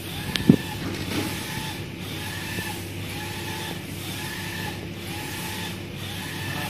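UV flatbed printer's print-head carriage shuttling back and forth over the bed, a motor whine that breaks off and restarts about once a second as each pass reverses. A single sharp thump about half a second in is the loudest sound.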